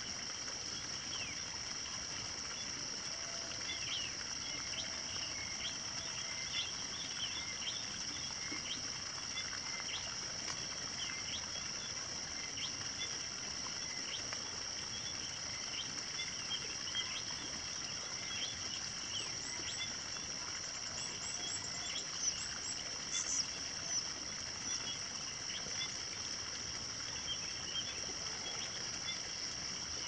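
A steady, high-pitched insect drone with many short bird chirps scattered through it; a run of higher, quicker chirps comes about two-thirds of the way through.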